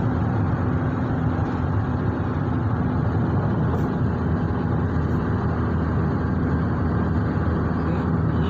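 Steady road and engine noise of a moving vehicle heard from inside the cabin, with an even low hum.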